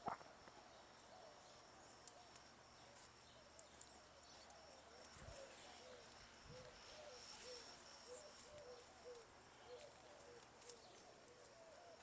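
Faint garden ambience: insects keep up a steady, high, thin trill, while a bird gives short, faint chirps about twice a second through the middle.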